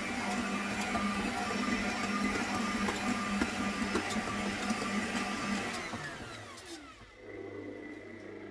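Electric stand mixer motor running steadily with a whine while kneading bread dough, then slowing down with a falling pitch about six seconds in. A lower, quieter hum follows briefly near the end before it stops.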